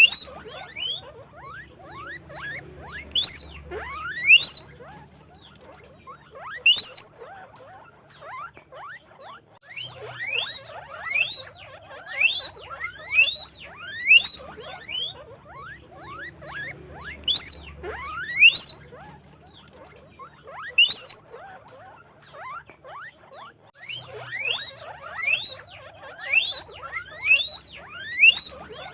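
Guinea pigs squeaking: many short, high calls that rise in pitch, overlapping in busy clusters with quieter spells between.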